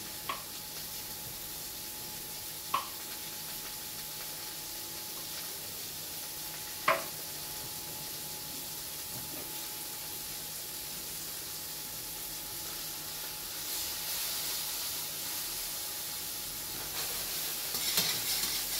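Sliced mushrooms frying in a steel pan, a steady sizzle. A few sharp knocks of a knife on a cutting board stand out, the loudest about 7 seconds in, and the sizzle grows louder with clatter near the end as the mushrooms are stirred with tongs.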